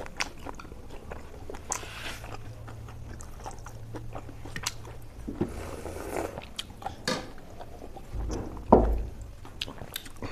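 Close-up eating sounds: chewing and biting with scattered small clicks and crunches. A louder dull thump comes near the end.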